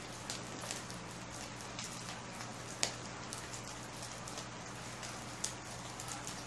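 Charcoal burning in a chimney starter, crackling with small irregular pops and ticks; a sharper pop about three seconds in and another near the end.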